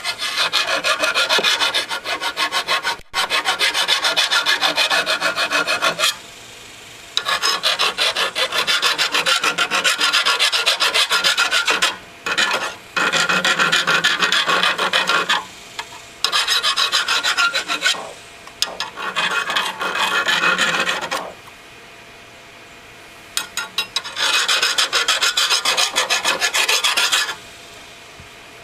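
Hand file rasping along the cutting edge of a Honda HR194 lawn mower's steel blade in quick back-and-forth strokes, in five runs with short pauses between. The blade is dull and chipped, and hard to sharpen.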